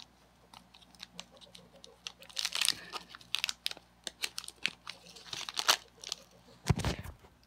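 Small plastic ramen seasoning sachet crinkling and tearing as its too-small opening is ripped wider. It is a long run of crackles and rustles starting about two seconds in, with a knock near the end.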